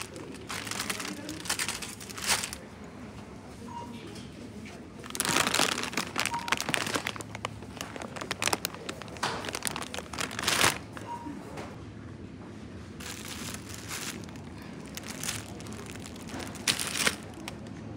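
Crinkling and rustling of something being handled, in irregular bursts that come and go, with the loudest stretches about five to seven seconds in and around ten seconds.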